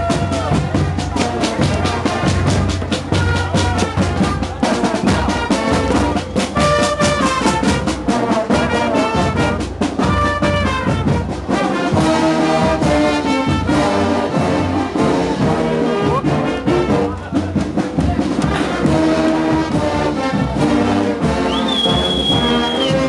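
A marching brass band playing in the street: horns sounding held melody notes over a fast, steady drum beat. Near the end a high whistle sounds for about a second and a half.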